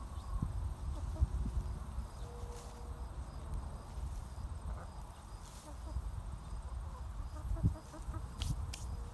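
Backyard chickens clucking quietly over a low, steady rumble, with a couple of sharp ticks near the end.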